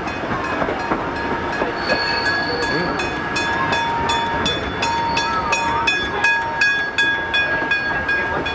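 Level crossing bell ringing in quick, evenly spaced strokes, starting about two seconds in, over the steady running noise of the train carriage.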